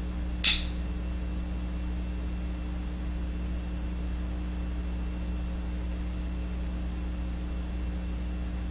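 Steady low electrical mains hum, with one short sharp click about half a second in.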